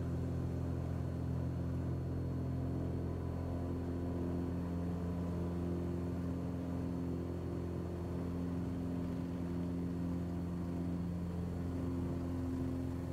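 Cessna 182's freshly rebuilt six-cylinder piston engine and propeller at takeoff power during the takeoff roll, heard from inside the cabin as a steady, even drone.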